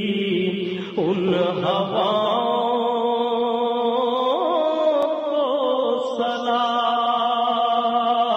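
Naat sung without instruments: a voice holds long, drawn-out notes that waver and slide in pitch, with no words sung in this stretch.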